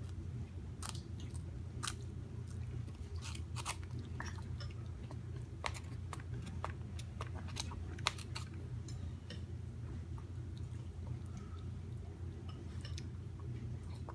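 Crackers crunching as they are chewed: irregular crisp crunches, thick for the first half and thinning out later, over a steady low hum.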